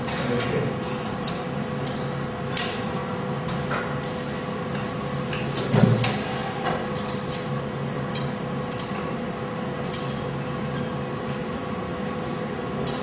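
Glassmaker's tools clicking and tapping against hot glass over a steady hum. A sharp tap about two and a half seconds in, and a heavier knock near six seconds.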